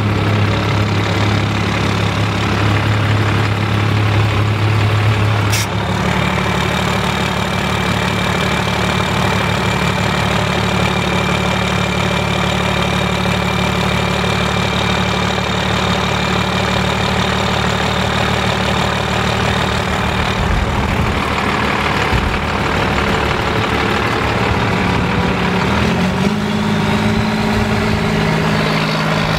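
Turbo diesel engine of a rat rod running steadily, mostly at idle, with its note rising near the end as the vehicle gets moving.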